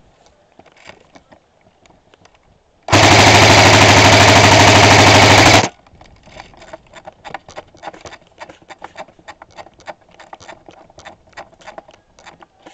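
An airsoft electric rifle fires a single full-auto burst of about three seconds, very loud and close. After it comes a long string of quieter, sharp airsoft shots, several a second.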